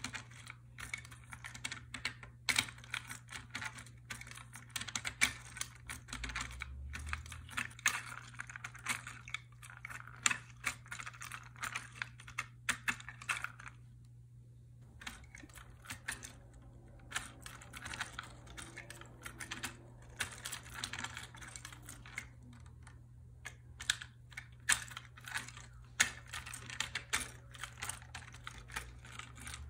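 Hand-cranked automaton with laser-cut wooden gears and 3D-printed plastic legs clattering as the crank turns: a rapid, uneven run of small clicks and rattles that pauses briefly about halfway through.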